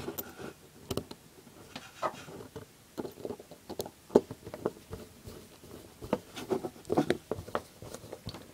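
Irregular small clicks, taps and scrapes of a screwdriver and small metal parts being handled as the cover of a string-trimmer carburetor is screwed back on over its gasket.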